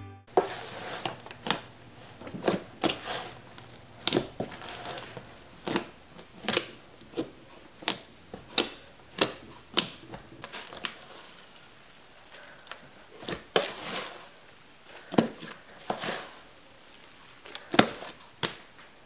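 Fluffy shaving-foam slime being poked and squeezed by fingers: irregular sharp pops and clicks as trapped air pockets burst, a few dozen of them unevenly spaced.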